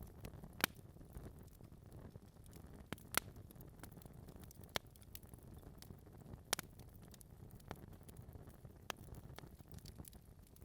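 Wood fire in a fireplace crackling: a low steady burning sound with irregular sharp pops from the logs, the loudest about half a second in and others a few seconds apart.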